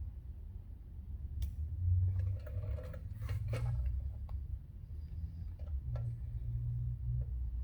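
Scattered clicks and scrapes of hand work on a pit bike's carburetor and fuel hose, with the loudest cluster in the middle, over a steady low rumble.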